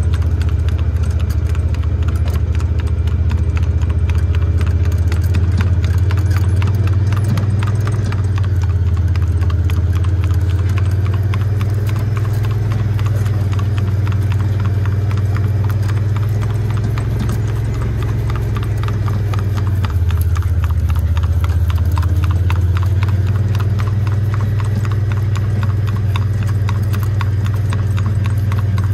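Paso fino gelding's hooves striking pavement in its smooth, even four-beat gait: a rapid, steady patter of hoofbeats. Under it runs a loud, steady low rumble.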